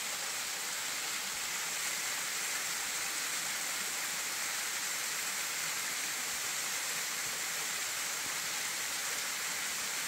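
Benton Falls, a 65-foot waterfall, running at low flow down stepped rock ledges: a steady rushing of falling water.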